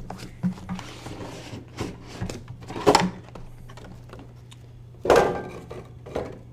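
Cardboard and plastic packaging being handled and pulled open: rustling and small clicks, with two louder knocks about three and five seconds in. A steady low hum runs underneath.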